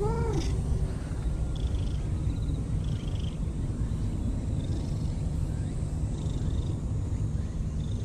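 Orange-and-white cat giving one short meow that rises then falls in pitch, right at the start, over a steady low rumble.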